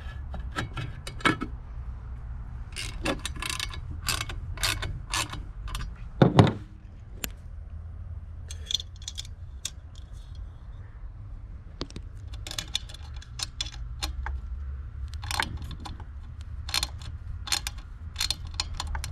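Hand assembly of a pool pump motor: clicks, taps and rattles as the plastic end cap is fitted over the motor's wiring end and screws are turned with a hand screwdriver. One louder knock comes about six seconds in.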